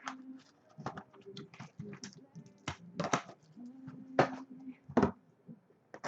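Sharp clicks and crinkles from trading-card boxes and wrappers being handled and opened, with a faint steady whine twice in between.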